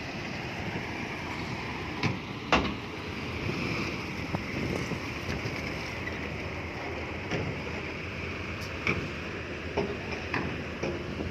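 Heavy earthmoving machinery working: a steady engine drone with a few sharp knocks, the loudest about two and a half seconds in.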